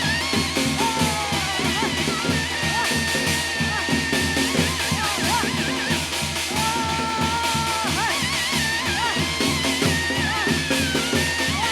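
Korean shaman ritual (gut) music: a fast, steady drumbeat with a high wind-instrument melody over it, whose notes waver and are held long.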